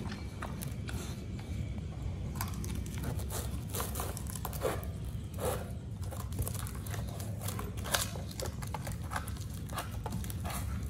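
A pit bull gnawing and tearing at the fibrous husk of a whole young coconut: irregular crunching, ripping and crackling as the husk is pulled apart, over a steady low rumble.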